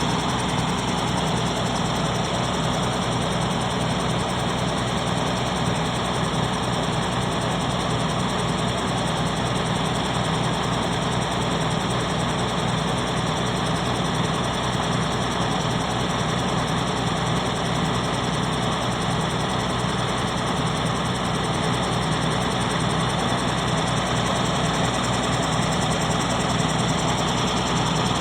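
Diesel engine of a drainage water pump running steadily at constant speed.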